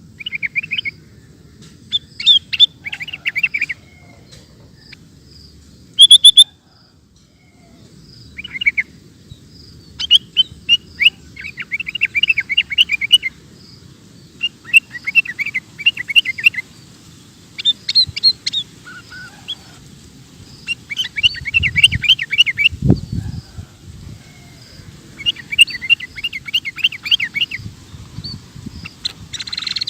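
Sooty-headed bulbul (kutilang) singing in rapid runs of chirping notes, phrases of one to three seconds with short pauses between. There is one brief sharp sound about six seconds in and a low thump later on.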